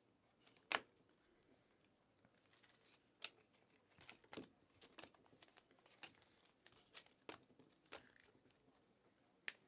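Faint, irregular clicks and snaps of glossy Panini Mosaic trading cards being flicked and slid off a stack held in the hands, about a dozen small snaps with a few sharper ones.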